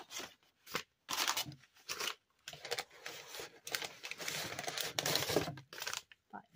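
Crinkled brown kraft packing paper rustling and tearing in irregular bursts as it is pulled out of a box and unfolded.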